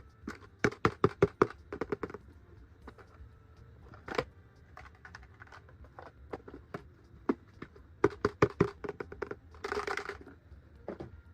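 Hard plastic toy parts and packaging being handled: runs of quick clicks and taps, two of them about a second long, and a short crinkling rustle near the end.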